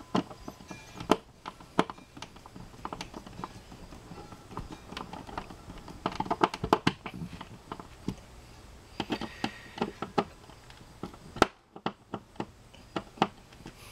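Screwdriver driving the mounting screws of a NEMA 6-20 outlet into its electrical box: irregular small metal clicks, taps and scrapes, bunched in a few runs.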